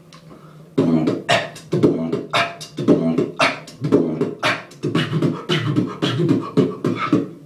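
A beatboxer performing a fast beat of mouth-made drum strokes, snare and hi-hat-like hits layered over pitched vocal tones, starting about a second in.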